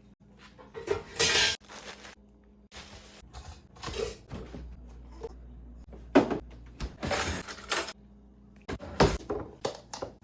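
Kitchen clatter: dishes, pans and utensils being handled one-handed, with a series of short knocks, clinks and scrapes, the sharpest about six seconds in and again near nine seconds.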